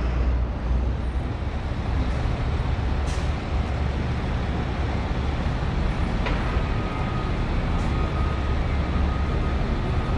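Steady low rumble of street traffic, with cars driving past. About six seconds in there is a short click, followed by a faint, steady high whine.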